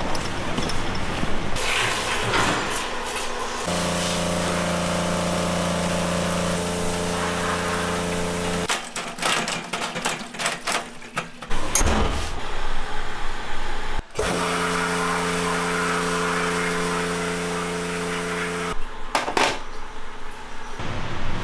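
Metal engine parts, rocker arms among them, clinking and knocking against steel trays and a parts-washing basket in clusters of sharp clicks. Between these are long stretches of a steady low hum.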